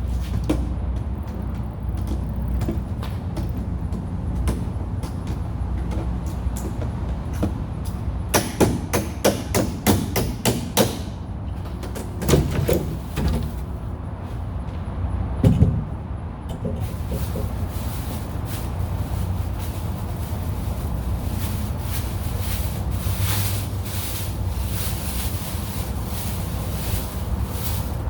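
Knocks and clatter from packaging being handled and pulled off a boxed generator head, clustered about eight to eleven seconds in with a few more a little later, over a steady low rumble.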